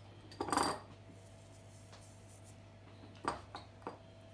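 A few light clinks and taps of kitchenware: one short clink about half a second in, then three quick taps a little after three seconds, over a faint steady hum.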